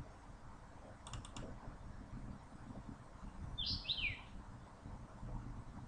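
Computer mouse clicking: a quick cluster of clicks about a second in, over low room noise. About halfway through comes a short, high chirp that falls in pitch.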